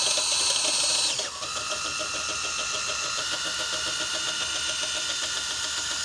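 Cordless drill spinning chimney-sweep rods and brush down a stove flue, running steadily; its pitch drops about a second in and then holds.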